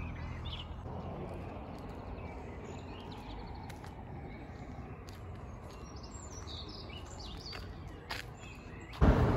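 Small birds chirping and tweeting over steady outdoor background noise. Near the end a sudden loud rush of noise cuts in.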